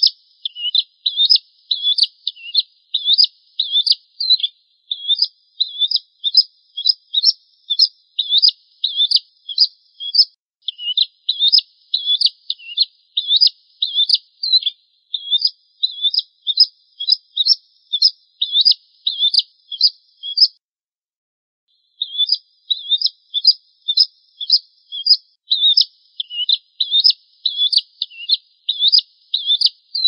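Prenjak jawa (bar-winged prinia) singing: sharp, high chirping notes repeated rapidly, about two a second. There is one pause of a second or two about two-thirds of the way in.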